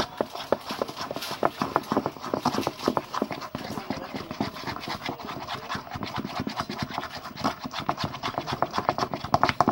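Homemade slime being kneaded and squeezed by hand: a rapid, irregular run of sticky squelches and small popping clicks.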